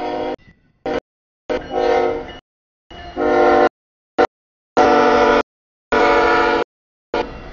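CSX freight locomotive's air horn sounding for the grade crossing as the train arrives. The chord comes in several blasts, some short and some longer, each cut off sharply, with a low train rumble under them.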